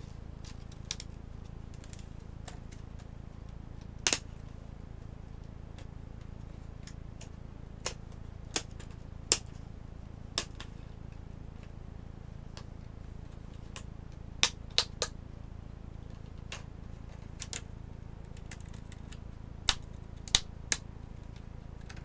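Plastic tabs of an Asus C300 Chromebook's display bezel snapping loose as the bezel is pried off the screen: sharp, irregular clicks, some in quick pairs, over a low steady hum.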